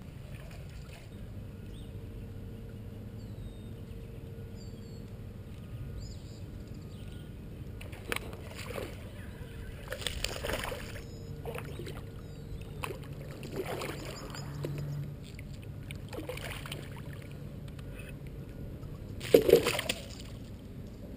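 Water sloshing and swishing around a kayak, with several short noisy strokes spaced a few seconds apart and one much louder knock-like burst near the end.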